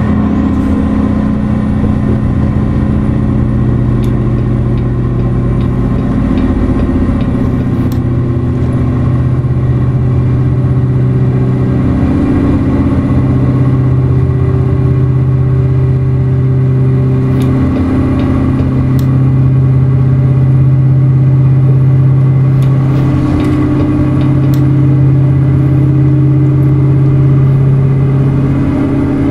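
A tractor-trailer's CAT 3408 V8 diesel running under way, a steady drone that shifts a little in pitch and swells somewhat about two-thirds of the way through.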